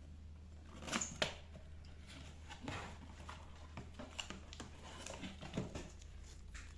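Packaging being handled by hand: rustling and scraping, with two sharper knocks about a second in, then scattered light taps and rustles over a steady low hum.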